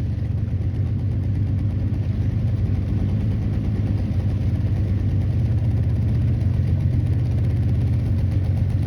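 An engine running steadily at low speed, a deep even rumble that grows slightly louder over the first few seconds.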